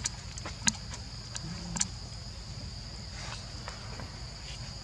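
Steady high-pitched insect chorus, with a few sharp clicks or taps in the first two seconds.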